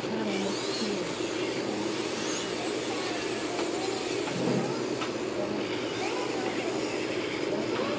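Electric nail drill running steadily with a sanding band bit, grinding down an artificial nail tip.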